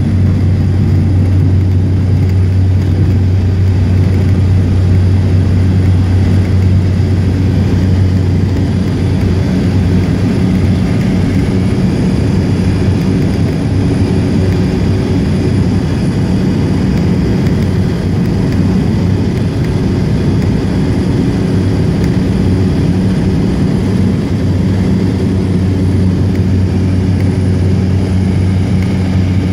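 Cessna 208 Caravan's Pratt & Whitney PT6A turboprop and propeller running at high power through the takeoff and climb-out, heard from inside the cabin: a steady, loud low drone with a thin high whine above it.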